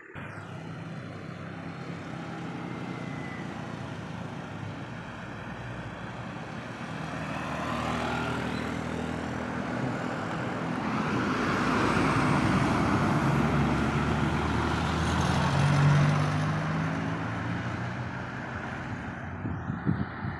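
Roadside traffic with a heavy vehicle approaching and driving past. Its engine grows louder to a peak about sixteen seconds in, then fades away.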